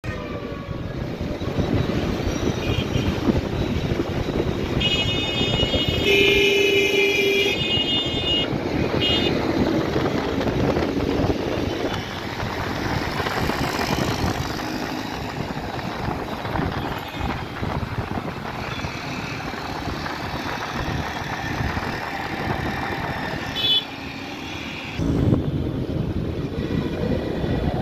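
Riding on a motorcycle through city traffic: steady engine and wind noise, with vehicle horns honking several times, the longest about five to seven and a half seconds in.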